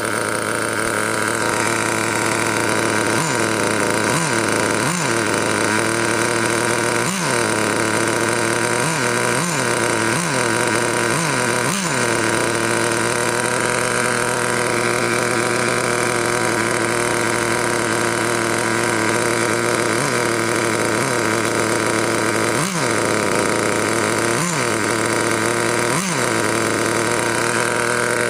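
Traxxas TRX 2.5 two-stroke nitro engine in a T-Maxx RC truck idling steadily, blipped into short revs more than a dozen times, the pitch jumping up and dropping straight back each time. Most of the blips come in the first twelve seconds, and a few more come near the end. The engine is a second-hand replacement that the owner says idles lovely.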